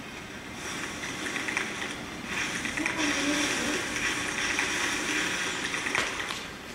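Rustling, crunching dry-leaf sound in uneven surges, from an interactive leaf-projection installation responding to feet moving through the projected leaves.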